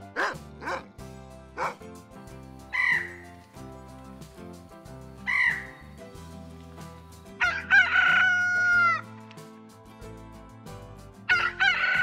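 A dog barks three times, an Indian peacock gives two short calls, then a rooster crows twice, and the crows are the loudest sounds. Background music runs underneath.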